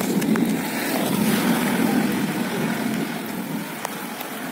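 Steady rain on a flooded road, with a low rumble underneath, a little louder in the first two or three seconds.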